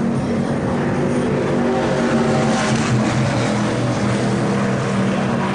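NASCAR-style stock car V8 engines running at speed on an oval, a loud steady drone that holds nearly one pitch.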